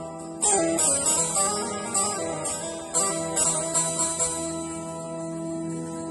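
Instrumental music on plucked strings: a run of picked notes, then a chord left ringing and slowly fading over the last couple of seconds.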